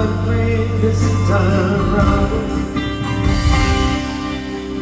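Live band music from a slow folk-rock song, with singing over sustained instruments.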